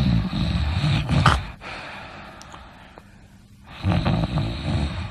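Snoring: one long snore in the first second and a half, then a second snore about four seconds in.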